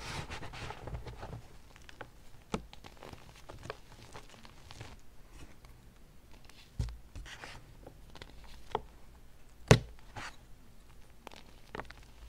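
BSN gym chalk being crumbled and squeezed by hand into loose powder: soft crunching and rustling broken by a scattering of sharp snaps, the loudest about three-quarters of the way through.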